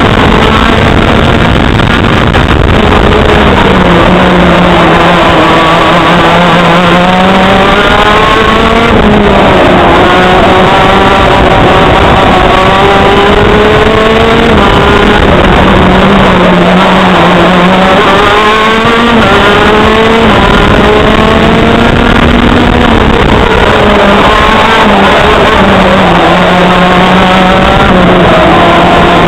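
TM KZ10C 125 cc two-stroke shifter kart engine at full race pace, heard loud from on board the kart. Its note climbs as it accelerates and drops back as it slows for corners, several times over.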